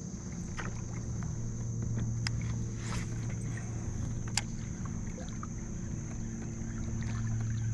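Old Town PDL pedal-drive kayak moving under pedal power, its drive giving a steady low whir, with a few light clicks and taps about halfway through.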